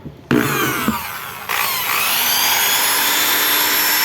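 Skil electric drill switched on: the motor starts about a third of a second in, then speeds up about a second and a half in and settles into a steady high whine. It is running after reassembly, with the stray wire that kept the housing from closing, the cause of its earlier noise, moved out of the way.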